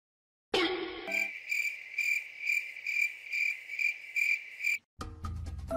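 Cricket chirping: a steady high trill that pulses about twice a second, then cuts off abruptly near the end. A brief pitched sound comes just before it, about half a second in.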